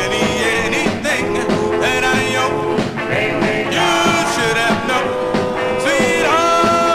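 Doo-wop vocal group singing in harmony over a rock and roll backing band, played from a 45 rpm record. The voices settle into a long held note near the end.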